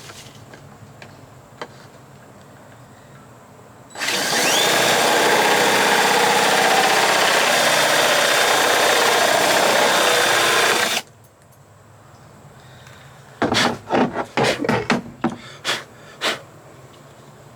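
A power drill bores out a keyhole in a plastic door-handle cover, widening a small pilot hole. It runs for about seven seconds, spinning up to a steady whine. A few seconds after it stops comes a quick run of sharp clicks and knocks.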